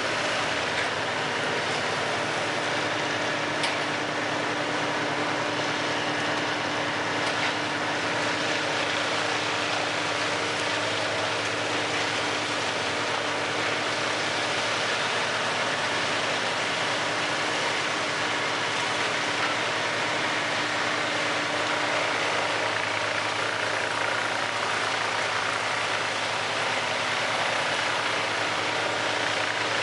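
Large stationary wood chipper running steadily, a dense, unbroken machine noise with a faint steady hum underneath.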